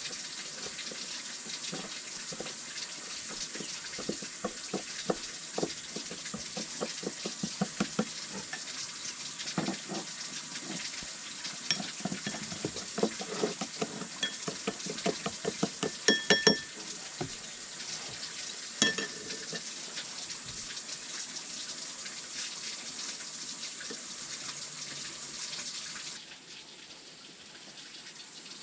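Food sizzling in a frying pan while a utensil stirs and scrapes through it, with a couple of sharp, ringing metallic clinks of the utensil on the pan a little past halfway. Near the end the sizzling drops away suddenly.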